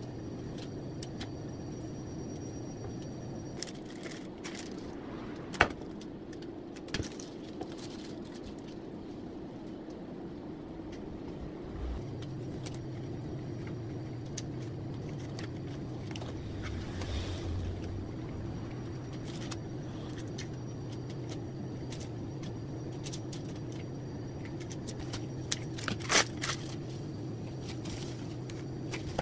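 Cut flowers being conditioned by hand: light rustling and scraping of stems and leaves, with a few sharp clicks, loudest about five and a half seconds in and near the end, over a steady low machine hum.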